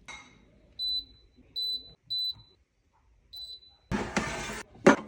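Digital air fryer control panel beeping as its buttons are pressed: four short high beeps, then a brief rushing noise and a knock near the end.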